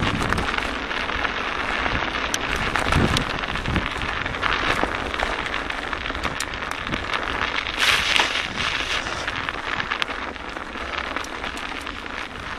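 Mountain bike tyres crunching and crackling over a frozen, snow-dusted trail, with a constant patter of small clicks and rattles from the moving bike. A few low gusts of wind buffet the microphone near the start.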